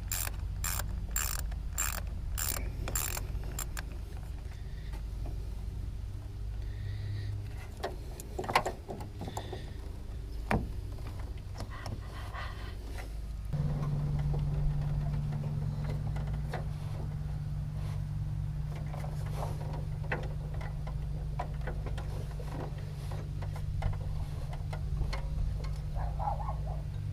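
Socket ratchet clicking in a quick, even run of about two clicks a second, then scattered clinks and knocks of hand tools on metal as bolts are worked loose on a diesel engine. A steady low hum sets in about halfway through.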